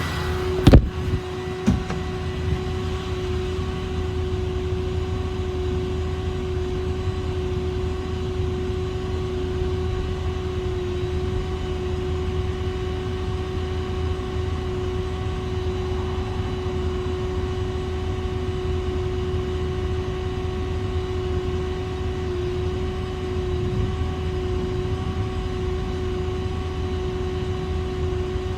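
Ramsey 12,000 lb truck winch running steadily, a constant whine over a low engine rumble. Two sharp clanks come about a second in.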